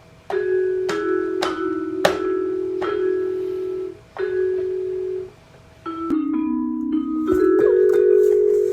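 Electronic baby toy playing a chiming, xylophone-like melody, struck notes about twice a second, with two short breaks partway through.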